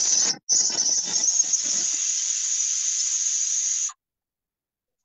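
Loud, harsh hiss of microphone noise coming through an online call, brightest in the treble. It breaks off briefly near the start, then runs on and cuts off suddenly about four seconds in, as if the audio were muted or gated.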